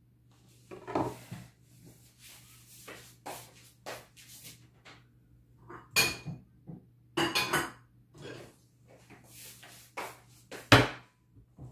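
Scattered knocks and clinks of kitchen utensils and bowls being handled on a table, with the loudest knock near the end, over a faint steady low hum.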